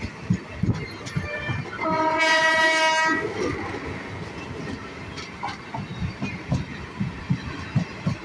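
Train wheels clattering over rail joints beneath a moving passenger coach, about two knocks a second, with a loud train horn blast of a little over a second about two seconds in.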